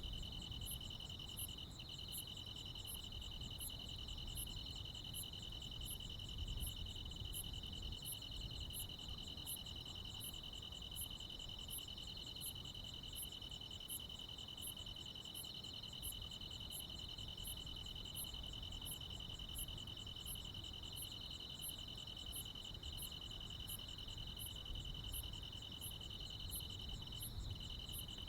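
Chorus of crickets and other insects on a summer night: a steady unbroken trill, with a very high, thin chirp repeating evenly about one and a half times a second over it, and a faint low rumble underneath.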